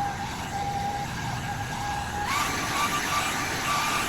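Hand-held hair dryer running, rushing air with a steady motor whine. About two seconds in it steps up to a higher-pitched, louder setting.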